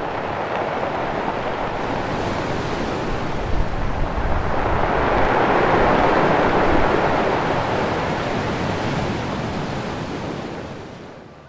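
Rough, stormy sea: surf and breaking waves rushing, swelling to a loud peak around the middle and dying away near the end.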